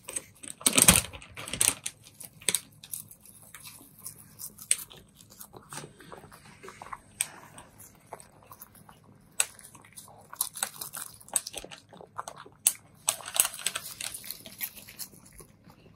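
Cats chewing a dried tuna-flake treat from bowls: irregular smacking and crunching bites, loudest about a second in.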